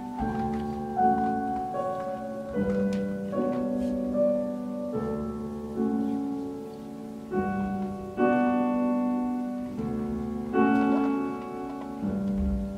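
Instrumental music of slow, ringing chords: a new chord is struck every one to two seconds and each rings on as it fades.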